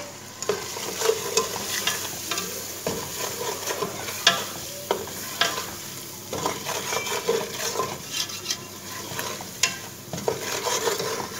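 Boneless chicken pieces frying and sizzling in oil in a metal pot while a spatula stirs them, scraping and knocking against the pot in many short clicks.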